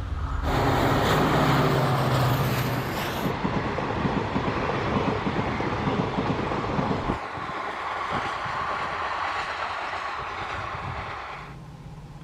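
Express passenger train passing close by at speed, with a loud rushing noise and fast rhythmic clatter of wheels over the rail joints.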